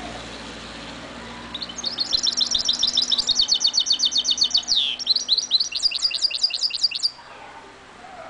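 Caged goldfinch mule (goldfinch × canary hybrid) singing: a long, rapid run of high repeated notes, a falling sweep partway through, then a second trilled phrase that stops abruptly. A faint low hum of traffic sits underneath at the start.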